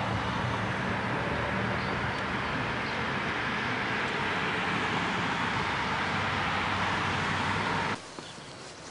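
Steady rush of road traffic with a low engine hum, cutting off abruptly about eight seconds in and leaving much quieter outdoor background.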